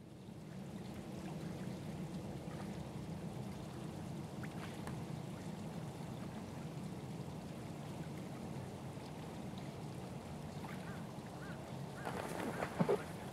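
Stream water running steadily with a low rush, with a few louder knocks near the end.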